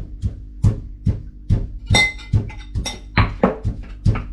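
Pestle pounding in a stone mortar, sharp knocks about two to three times a second in a slightly uneven rhythm, over background music.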